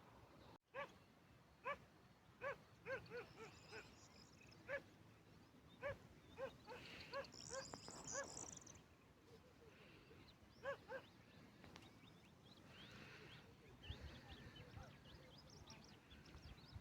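A dog barking in short, irregular runs of faint barks, with small birds chirping briefly in between.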